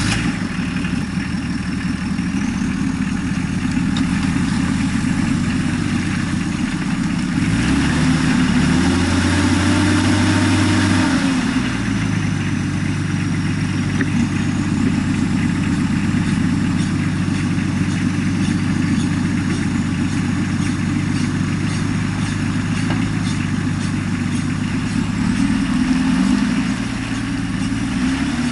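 Engines of a backhoe loader and a Toyota Bandeirante 4x4 running as the loader tows the mud-stuck Bandeirante out. The engine note rises for about four seconds around eight seconds in, then drops back to a steady run.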